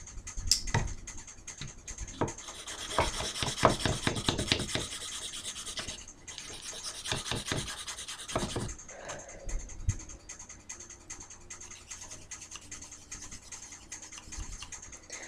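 Knife blade sawing back and forth across a thin bamboo skewer to cut it: a run of quick scraping strokes with small clicks. It is busiest in the first half and eases to occasional scrapes and clicks after about nine seconds.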